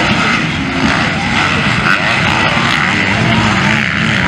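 Several motocross bikes racing together, their engines revving and rising and falling in pitch as the riders accelerate, shift and jump, loud and continuous.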